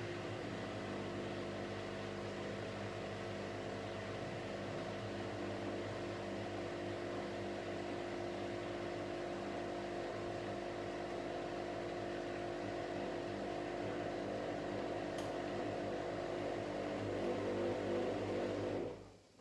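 Whirlpool AWS 71200 washing machine's drain pump running steadily during the first drain, a hum of several steady tones. It grows a little rougher and louder near the end, then stops suddenly as the drain finishes.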